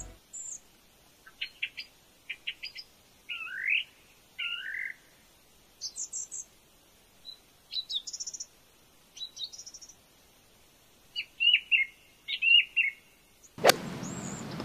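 Small birds chirping and trilling in short, scattered phrases. Near the end, one sharp crack of an 8-iron striking a golf ball on a tee shot.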